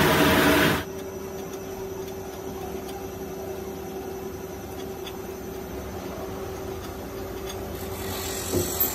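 Plastic-processing machinery running with a steady hum and one held tone. A louder, noisier stretch cuts off abruptly about a second in, and there are two light knocks near the end.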